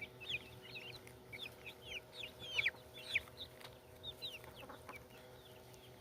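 A flock of young chickens peeping: many short, high calls, each falling in pitch, overlapping at an uneven pace, with a faint steady hum underneath.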